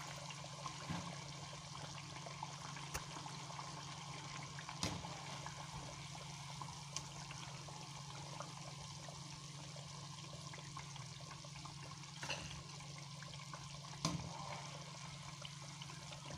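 Pakoras deep-frying in hot oil in a kadai: a steady sizzle, with a few light clinks of a steel skimmer against the pan as they are lifted out. A low steady hum runs underneath.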